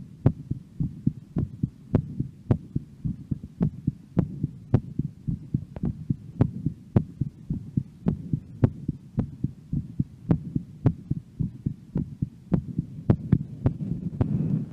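A woman's heartbeat, close-miked and beating fast and regularly at about two beats a second while her heart rate is still raised after a workout.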